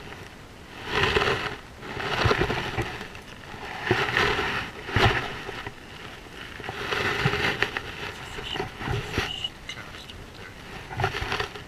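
Irregular swishing and sloshing noises, about one every second or two, as an angler wading in a river moves and casts a spey fly rod.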